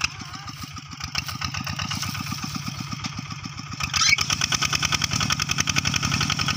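Small farm tractor engine running with a rapid, even chugging, getting louder about four seconds in.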